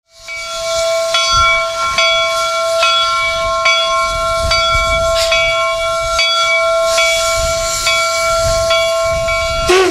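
Steam locomotive chime whistle sounding a steady multi-note chord over hissing steam, with a short sharp click a little more often than once a second. It fades in quickly at the start.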